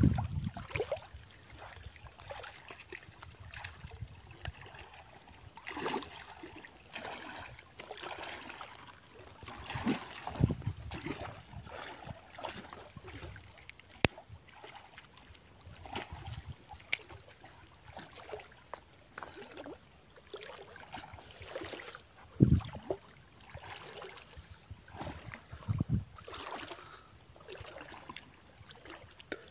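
River water splashing and sloshing in irregular bursts as a person wades and swims through it, pushing a dead branch along, with a few low bumps.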